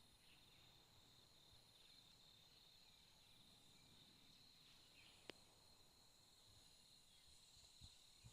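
Near silence with a faint, steady, high-pitched insect trill throughout, and a single sharp click a little past five seconds in.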